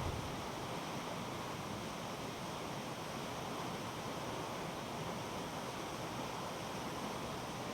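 Steady rushing of water from a mountain waterfall and stream, an even noise that holds constant throughout.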